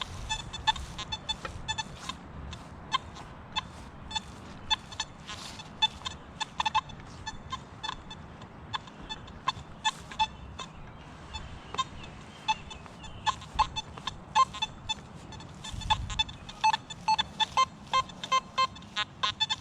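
Metal detector, a Nokta Simplex+, sounding short target tones in irregular chirps as it sweeps over buried metal. Near the end the chirps settle into an even run of beeps at about three a second.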